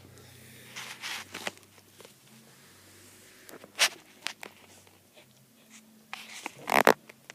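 Eating sounds: a few separate short crunches and bites, with pauses between them, the loudest near the end.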